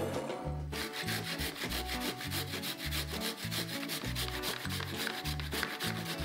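Food being grated on a fine stainless-steel hand grater: quick rasping strokes, roughly eight a second, starting within the first second.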